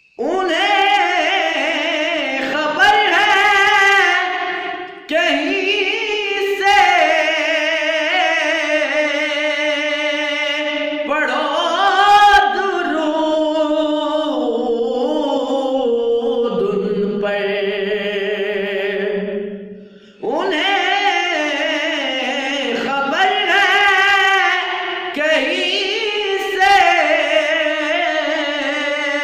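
A man singing solo in long held notes with a wavering vibrato, breaking off briefly for breath about five seconds in and again about twenty seconds in.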